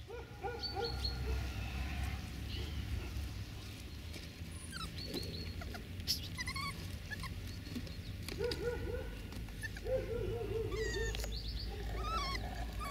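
Many short, high-pitched animal calls, yelps and chirps that slide up and down, with a quick run of them about two thirds of the way in, over a low steady rumble.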